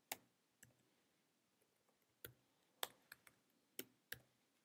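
Faint, irregular keystrokes on a computer keyboard: about seven separate key clicks with pauses between them.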